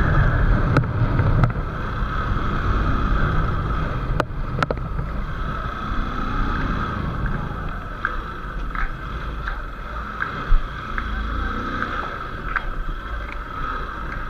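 Motorcycle engine running as the bike rides along a street, with a steady whine over a low rumble that gets gradually quieter as it slows. A few sharp clicks come in, two near the start and two about four seconds in.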